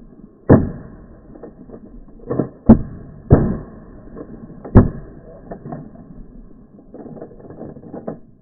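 Shotgun blasts fired in quick succession, five in about four and a half seconds, with fainter clicks and knocks after them.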